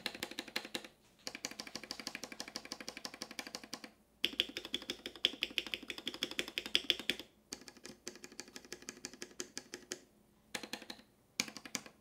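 Rapid key presses on an RK G68 keyboard's stabilized keys (spacebar, Enter, Backspace and Shift): quick runs of clacks broken by a few short pauses. The stabilizers are lubed with Krytox 205g0, and the Bandaid mod under them runs all the way onto the PCB, which gives a crappy, mushy sound.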